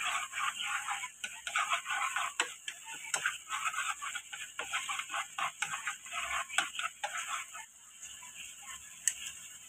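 Tomato sauce sizzling and bubbling in a frying pan with a steady crackle of small pops, while a spoon stirs it and clicks against the pan now and then. The sizzle drops to a quieter simmer near the end.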